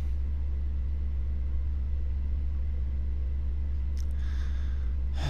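A steady low hum with no change in level, with a faint breath about four seconds in.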